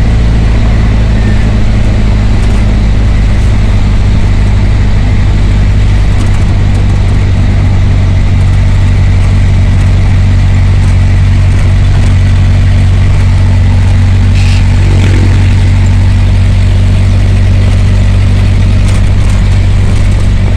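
Motor vehicle engine running steadily, heard from inside the passenger cabin while riding: a loud, even low drone.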